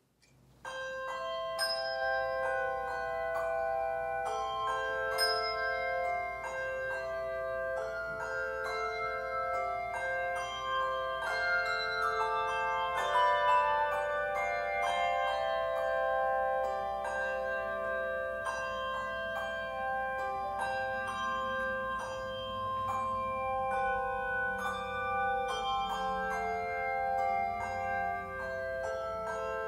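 Slow instrumental music of struck, ringing bell-like notes, several held and overlapping at once, starting about half a second in.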